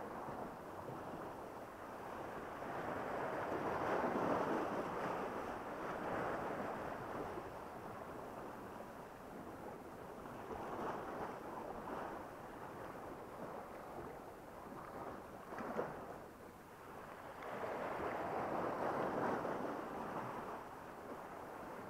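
Small sea waves washing against a rocky shore, swelling and falling back every few seconds, with a short sharp knock about three-quarters of the way through.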